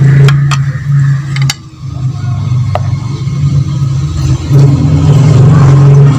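A steady low engine-like drone runs throughout and briefly drops away about a second and a half in. A few sharp clicks sound over the first three seconds.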